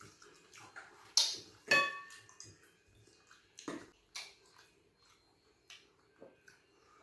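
Close eating noises: wet mouth smacks and sips of soup, with a dish clinking and ringing briefly just under two seconds in, and a few more clicks and smacks after.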